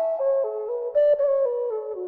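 Setanta low E whistle played as a tune, a clear breathy flute-like tone moving note by note and stepping down in pitch through the phrase.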